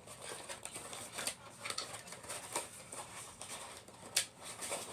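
Light clicks, taps and rustling of small plastic toys and their packaging being handled, with one sharper click about four seconds in.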